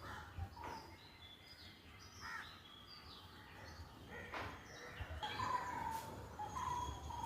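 A morning chorus of several birds chirping and whistling, overlapping calls at different pitches, with one short call repeated several times in quick succession over the last couple of seconds.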